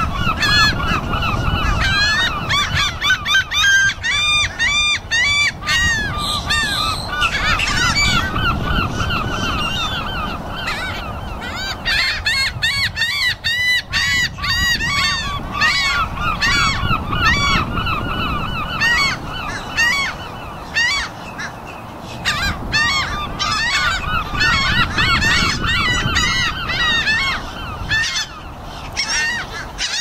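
A large flock of gulls calling together: many short, overlapping cries that rise and fall in pitch, forming a constant loud clamour over a low rumble. The calling thins briefly about halfway through and again a little later.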